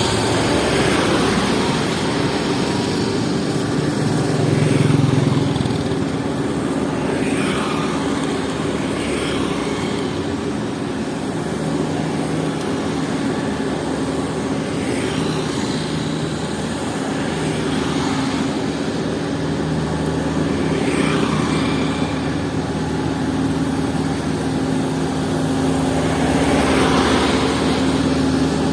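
Diesel engine of heavy road-construction machinery running steadily, with a few brief swells of higher-pitched noise.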